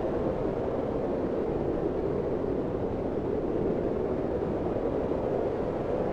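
Blizzard wind blowing steadily, a deep, even rushing noise with no single gust standing out.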